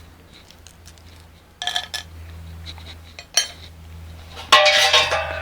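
Metal clinks and clanks from a steel canning autoclave and its parts being handled: a ringing clink about a second and a half in, a short click, then a louder clatter with ringing near the end.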